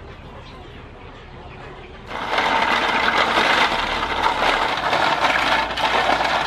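River snails being scrubbed by hand in salted water in an aluminium basin: about two seconds in, a loud, rapid clatter of shells knocking against each other and the metal bowl starts, with water sloshing.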